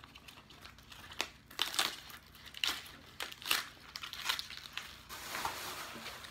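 Fresh collard green leaves being torn from their stems and crumpled by hand: a run of short, crisp crackles and rustles, one every half second or so.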